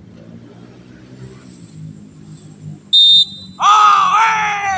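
A short, shrill whistle blast about three seconds in, then a man's loud, drawn-out shouted call, wavering in pitch, as a handler lifts a hen pigeon to call the racing pigeon down to the board.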